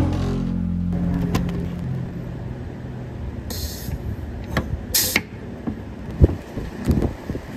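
Pneumatic rivet squeezer setting soft aluminium rivets: two short hisses of air about three and a half and five seconds in, with clicks and knocks as the jaws close and the tool is moved. The last of the background music fades out over the first two seconds.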